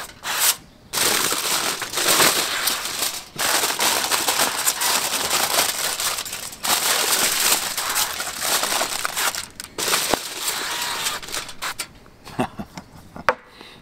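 Olive oil cooking spray hissing from an aerosol can in several long bursts, each a few seconds long, over vegetables in an aluminium foil pouch, with the foil crinkling as it is handled.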